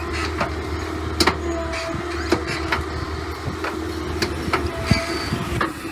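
Caterpillar 313D excavator's diesel engine running steadily under load while its sub-soil plow works through root-strewn soil, with irregular sharp cracks and clanks spread through.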